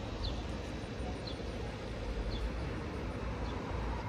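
Steady outdoor background of low rumble and hiss, with a short high chirp repeating about once a second.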